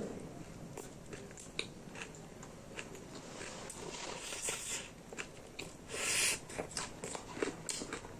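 Close-miked chewing and biting of food, with many small wet mouth clicks and smacks. A short, louder noisy burst comes about six seconds in.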